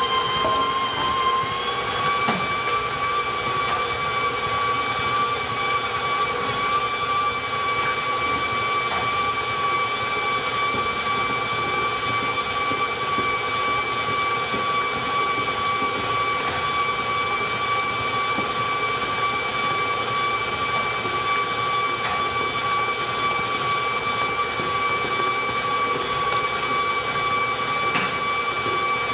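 Electric stand mixer running under load, its beater creaming a large batch of butter and sugar, with a loud, steady motor whine. The whine steps up slightly in pitch about two seconds in, then holds.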